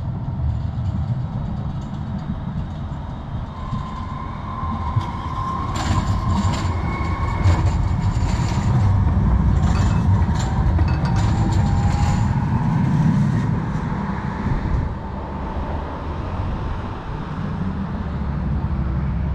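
Tram rolling past over the rails: a low rumble that swells in the middle, wheels clicking over rail joints and points, with a thin wheel squeal lasting several seconds.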